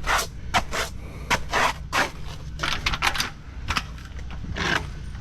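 Footsteps on a pool deck: an irregular run of sharp clicks and short scuffs, a few a second, over a steady low hum.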